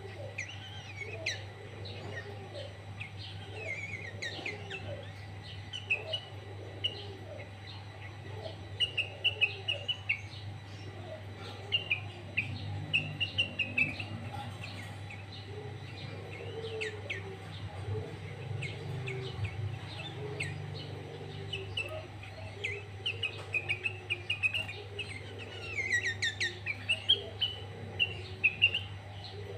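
Sooty-headed bulbul (kutilang) singing loud, rapid runs of short chirps and warbled phrases, its song laced with greater green leafbird (cucak ijo) phrases. The singing sits over a steady low hum.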